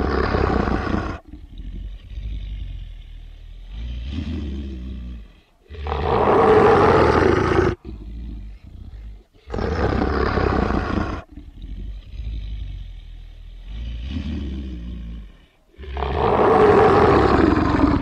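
A recorded animal roar sound effect repeating on a loop. There are four long, loud roars, each about two seconds, with quieter growls between them, and the pattern comes round about every ten seconds.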